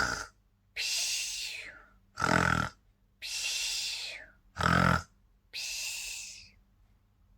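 A person imitating snoring: three short, loud snores on the in-breath, each followed by a longer, softer hissing 'pshoo' on the out-breath.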